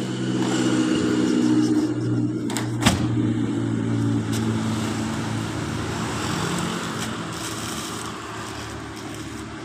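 A motor vehicle's engine running close by, growing louder over the first second or so and then slowly fading. A single sharp knock about three seconds in.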